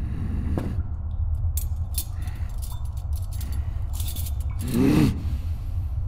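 Metal hand tools clinking and scraping against a wooden workbench in a few light, scattered bursts, over a steady low hum. About five seconds in, a short grunt from a person is the loudest sound.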